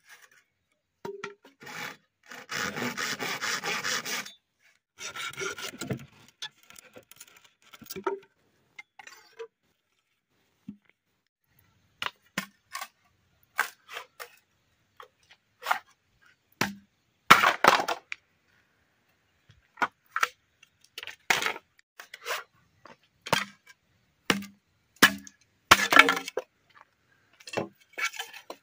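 Machete striking and splitting bamboo poles: a run of sharp, irregular cracks and knocks as the blade bites and the culm splits, with a couple of seconds of rasping splitting or scraping about two seconds in.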